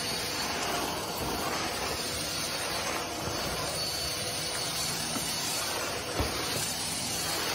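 Vacuum cleaner running steadily: a constant rushing hiss with a faint high motor whine.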